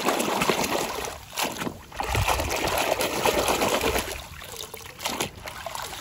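Water splashing and sloshing as a hand churns a plastic toy jeep under the surface to wash the mud off. There is a short lull about a second in, and the splashing dies down over the last two seconds as the toy is lifted out.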